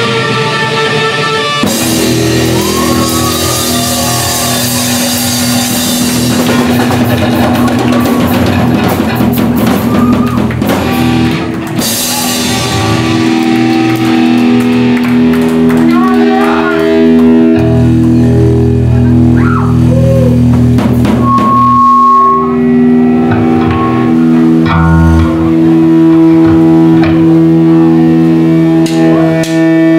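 Live rock band playing: electric guitar with bent lead notes and long held notes over bass guitar and a drum kit, with crashing cymbals for the first several seconds.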